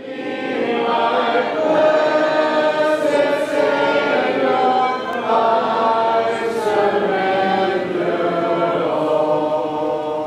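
A congregation singing a hymn a cappella, many voices together in harmony on long held notes.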